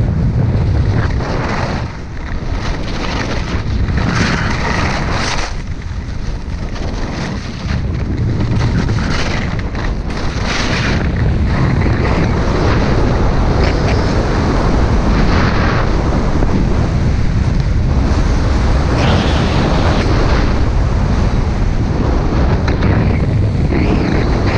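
Heavy wind buffeting the microphone of a skier moving fast downhill, with swells of hissing as the skis carve and scrape across packed snow in turns every few seconds.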